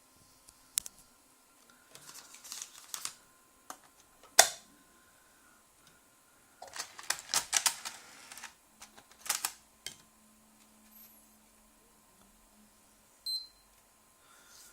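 Irregular mechanical clicks and rattles from a Blu-ray player's disc drive, which is failing to spin the disc. A faint low hum runs for a few seconds past the middle, and a short high beep comes near the end.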